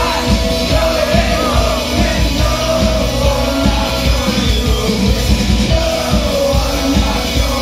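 A live indie rock band playing loud: electric guitar, bass guitar and a steady drum beat, with a man singing lead. Heard from within the audience in the hall.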